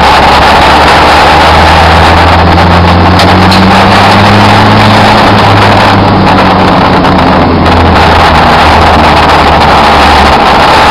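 Hill-climb race car's engine running hard, its note rising and falling, so loud that the recording is overloaded throughout.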